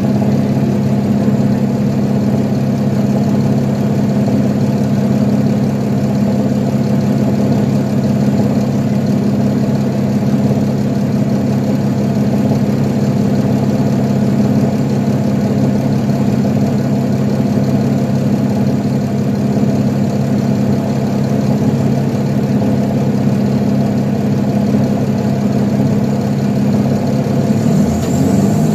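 2012 Nova Bus LFS articulated bus's diesel engine idling steadily, heard from inside the passenger cabin. Near the end its note rises as the bus begins to accelerate.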